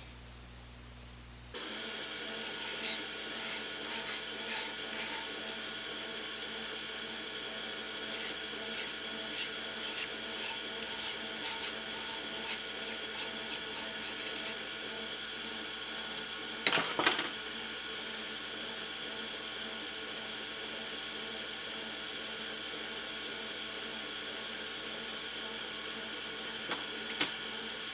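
Metal lathe switched on about a second and a half in and running steadily with a steady whine. Light ticks of tool work come over the next dozen seconds, and a brief louder clatter comes partway through.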